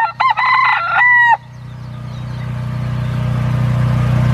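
A rooster crowing, a few short notes and then one long held note, over in about a second and a half. Under it and after it, a steady low mechanical hum that grows louder.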